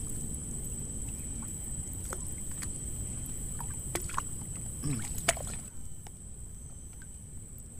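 Low rumbling handling noise with a few light clicks and knocks as fishing tackle and a plastic bait bucket are picked up. The rumble falls away about six seconds in.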